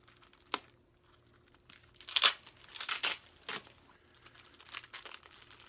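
Clear plastic wrapping on a silver bar crinkling and tearing as it is pulled open by hand, in a cluster of loud rustles about two to three and a half seconds in, with fainter rustling after. A single sharp click comes about half a second in.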